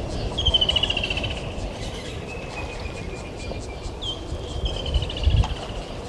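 A bird calls twice, about four seconds apart. Each call is a short rising note followed by a quick run of notes. Underneath is a steady low rumble, with a brief low thump a little over five seconds in.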